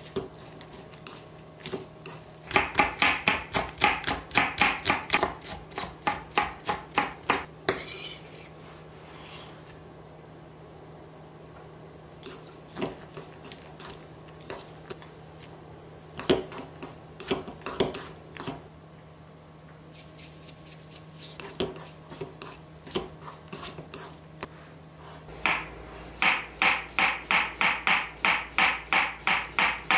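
Chopsticks tossing shredded cabbage in a stainless steel bowl, clicking against the metal in quick irregular runs. Near the end a chef's knife slices a cucumber thinly on a wooden cutting board in a fast, even series of chops, about four a second.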